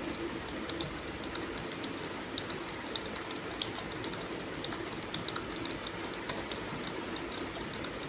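Fast typing on a computer keyboard: a rapid, irregular run of key clicks, several a second, over a steady background hiss.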